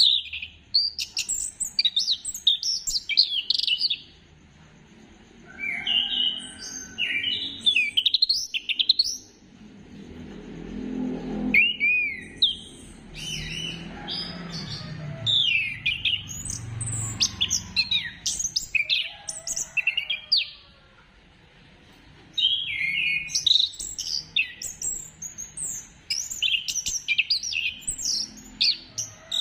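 Orange-headed thrush singing: bursts of fast, varied, high-pitched whistled phrases, broken by pauses of a second or two. It is the kind of song that keepers play to trigger their own birds to sing.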